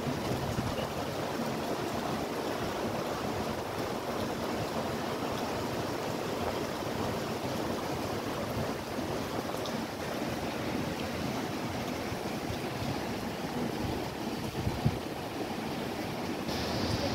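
Floodwater rushing steadily down a flooded street, a continuous noise of running water.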